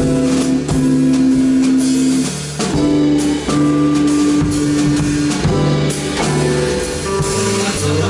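A live band playing a slow ballad in three-four time: guitar and drum kit with long held chords that change every second or two.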